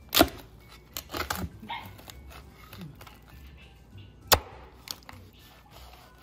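Cleaver chopping through the crisp, crackling pork skin of a rolled lechon belly and striking the wooden cutting board. There is a sharp chop just after the start, a cluster of crunches about a second in, and another sharp chop a little after four seconds.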